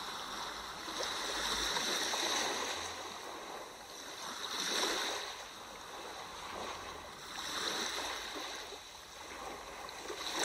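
Sea waves washing in, a rushing noise that swells and ebbs about every three seconds.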